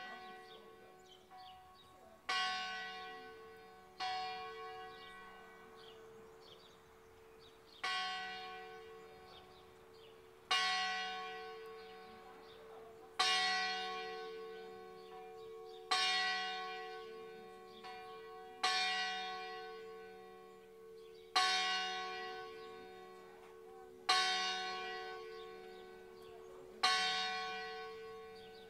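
Church bells of San Zeno in Pelugo swinging in a distesa peal. A loud stroke comes about every two and a half to three seconds, about ten in all, and each rings on and fades into a steady hum before the next.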